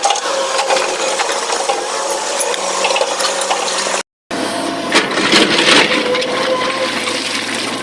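Excavator loading rock into a tipper truck: stones clattering and crunching with many sharp cracks over the machine's steady running. The sound drops out briefly about four seconds in.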